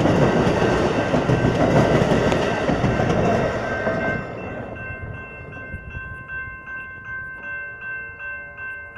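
Amtrak passenger train rolling past with its wheels clattering on the rails. The train noise fades about four seconds in, leaving a steady high ringing tone that pulses a few times a second.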